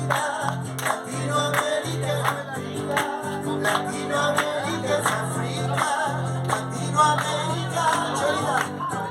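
Andean folk song: singing over sustained low accompaniment, with a steady beat of sharp percussive strikes.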